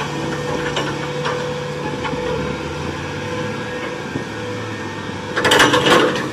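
Crawler crane's engine running steadily as the machine swings its clamshell grab bucket on the hoist ropes, with a louder burst of noise near the end.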